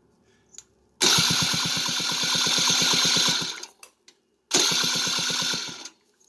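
Electric starter cranking a 150cc Kymco scooter's single-cylinder four-stroke engine in two tries, each with an even fast pulsing of the compression strokes, about two and a half seconds then about a second and a half. The engine does not catch.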